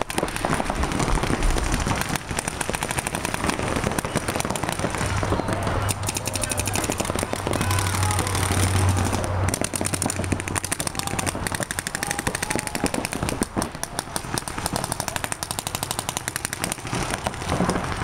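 Paintball markers firing in rapid strings of shots, an almost continuous crackle of pops from several bunkers across the field.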